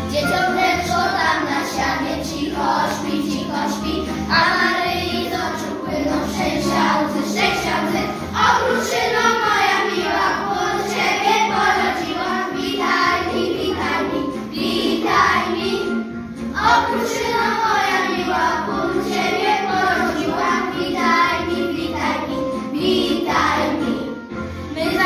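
A group of young children singing a Polish Christmas carol together over instrumental backing music with a steady beat.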